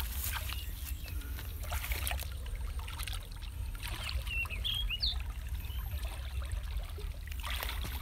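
Hands groping and stirring in shallow muddy water, with small sloshes and trickles. A few short high chirps come about four to five seconds in.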